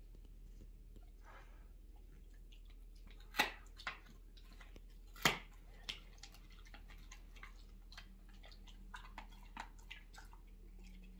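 A Great Pyrenees dog chewing a lamb rib, with scattered small wet clicks and two loud crunches about two seconds apart, a few seconds in.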